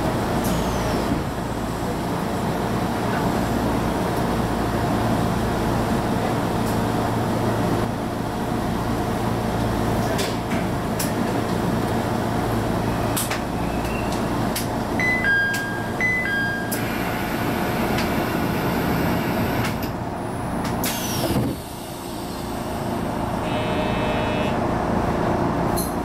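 JR East HB-E210 series hybrid diesel railcar running along the line, a steady mix of motor hum and wheel-on-rail noise. Short high electronic beeps sound about fifteen seconds in, and the noise dips briefly a little after twenty seconds.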